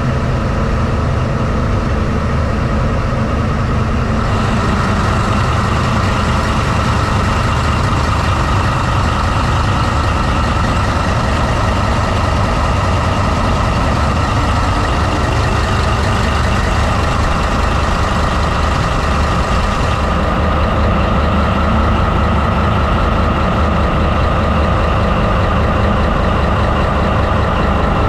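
MTU Friedrichshafen 20V4000 twenty-cylinder V diesel prime mover of a CRRC SDA1 locomotive, running steadily and loudly, heard from right beside it in the engine room. A brighter hiss is added about four seconds in and drops away again after about twenty seconds.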